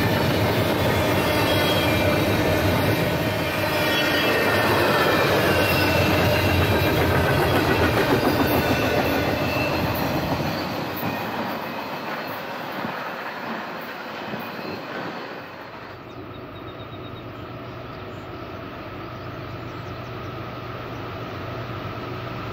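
Double-stack intermodal freight cars rolling past, wheels clicking over the rail joints with thin high wheel squeal, fading away as the train's tail end recedes. About two-thirds of the way in, a steady low rumble of a distant approaching diesel freight train takes over and slowly grows.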